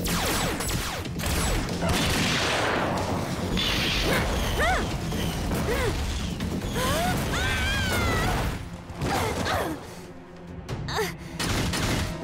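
Cartoon battle sound effects: robot mechanisms clanking, sharp impacts and an explosion blast, with several short sliding-pitch sounds in the middle, over background music.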